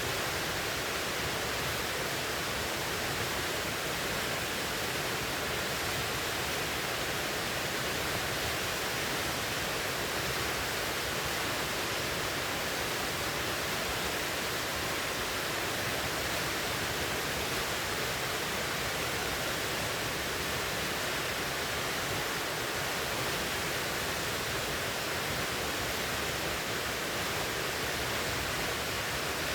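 River water rushing steadily over rocks, an even, unbroken roar of flowing water.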